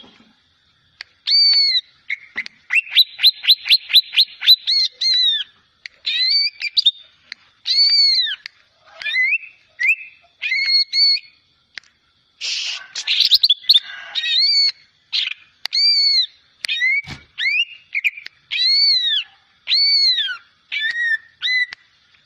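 A juvenile (trotol) cucak ijo leafbird practising its song, the halting, experimental singing of a young bird still learning. It gives a string of clear whistled notes, each rising then falling, with a fast run of rapid notes about three seconds in and a harsh, rasping note about halfway through.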